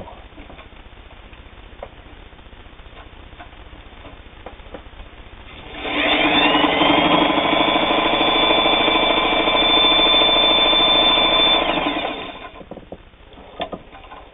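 Singer 223 all-metal sewing machine running at speed and stitching flannel, likely in blind stitch. Its motor whine rises in pitch about six seconds in, holds steady for roughly six seconds, then winds down and stops. Light clicks of handling come before and after the run.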